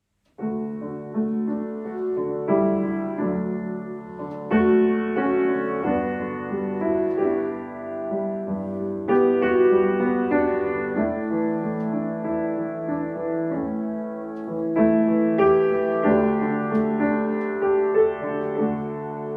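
Slow, gentle piano music, sustained chords changing every second or so.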